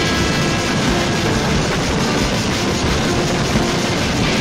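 Freight train of tank wagons running at speed, heard from aboard: a steady, loud noise of wheels on rails.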